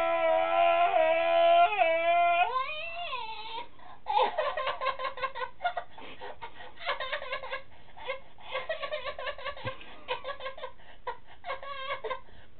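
A young man's long, loud wailing scream, held on one pitch and bending upward as it ends about three seconds in. He then breaks into laughter, quieter and in quick choppy bursts, for the rest.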